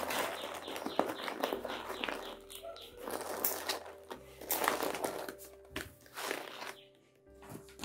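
A sheet of white A4 paper crinkling and rustling in irregular bursts as hands fold and crumple it around a bundle of paper scraps.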